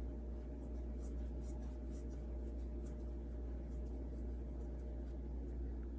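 Faint small ticks and rubbing from hands handling an insulin syringe and peptide vial, over a steady low hum.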